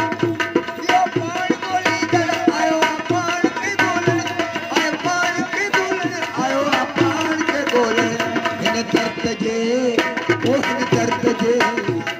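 Sufi folk music: harmonium and long-necked plucked lute over a steady drone, with a regular hand-percussion beat and a rising and falling melody.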